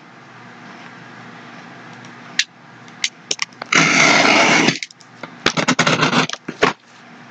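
A cardboard shipping box being cut open: one loud scrape about a second long as the tape is slit, with scattered clicks and taps from the box being handled before and after.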